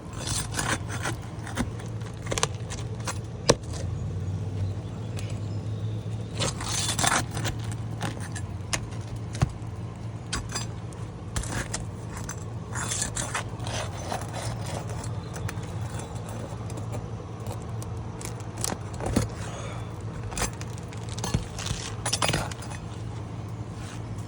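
Old asphalt roof shingle being worked loose and torn out by hand: irregular scraping and ripping with sharp metal clicks, over a steady low hum. The shingle tears because it has gone brittle and is failing.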